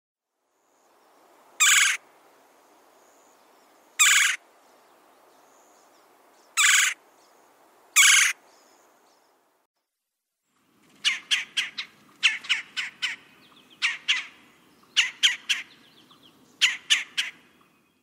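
Red-bellied woodpecker calling: four loud, short, rolling calls a couple of seconds apart, then, after a brief gap, quick bursts of four to six sharp notes repeated several times.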